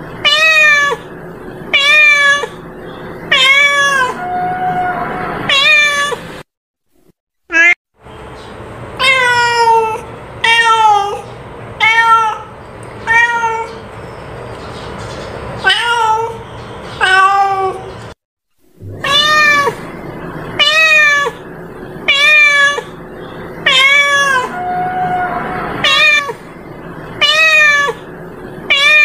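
Domestic cat meowing over and over, short calls about one a second, each dropping in pitch, broken twice by a brief silence.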